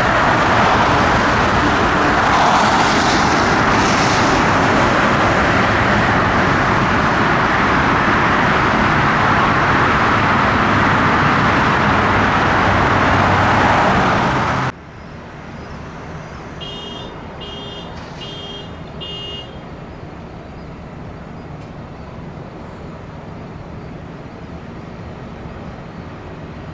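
Jet airliner engines running loud and steady, cut off abruptly about fifteen seconds in. What follows is quieter airport background noise with four short electronic beeps about a second apart.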